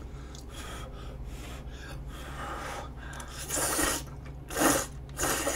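A person slurping udon noodles from a bowl of gopchang jeongol. There are a few soft slurps, then three louder ones in the last two seconds.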